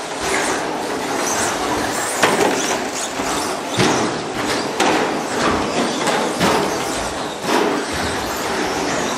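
Several radio-controlled 1/10 short course trucks racing on the track: a steady mechanical whirr of motors and tyres, broken by frequent sharp knocks and clatter.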